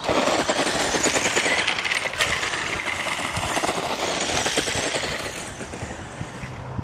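Tamiya Super Hornet RC car running over the ground with the camera riding on it: a loud, rattling rush of wheels and chassis that starts suddenly and fades toward the end.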